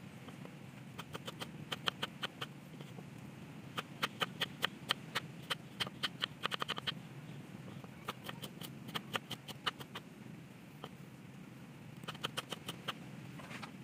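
Kitchen knife slicing ginger root on a wooden board, the blade tapping the board in quick runs of strokes with short pauses between them.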